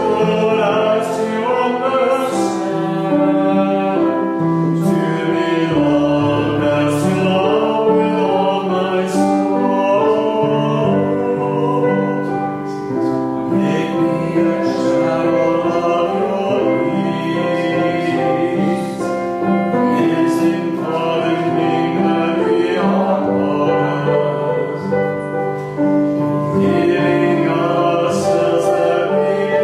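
An offertory hymn sung slowly, with held notes over instrumental accompaniment.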